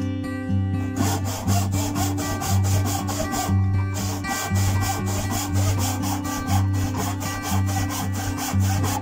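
Hand backsaw cutting across an oak rail in quick push-and-pull strokes, about three or four a second, starting about a second in with a brief pause midway. Acoustic guitar music plays underneath.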